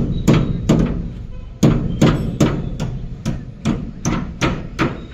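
Hammer blows on metal at a truck's leaf-spring assembly, where an extra spring leaf is being fitted: about a dozen sharp ringing strikes, two to three a second, with a short pause about a second in.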